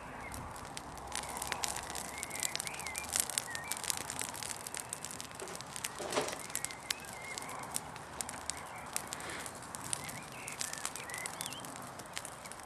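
Small fire crackling, with many sharp pops and snaps as it throws sparks. Birds chirp now and then.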